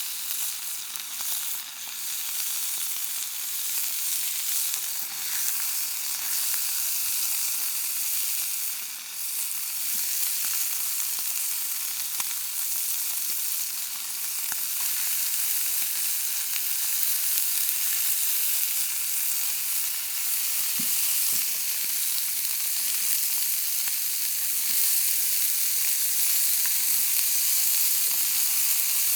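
Food sizzling and frying in a pan: a steady hiss with small crackles throughout.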